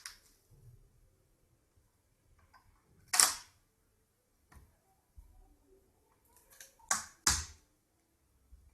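Plastic screen bezel of an HP Pavilion DV6 laptop being pried off the lid: sharp snaps as its clips and glue let go, one about three seconds in and two close together near seven seconds, with faint handling ticks between.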